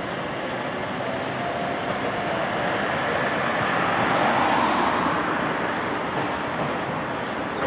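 City street traffic noise, with a car passing close by about four seconds in, swelling and then fading.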